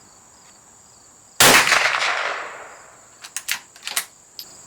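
A single gunshot from a handgun, a sharp crack about a second and a half in that dies away over about a second and a half. A few light clicks follow.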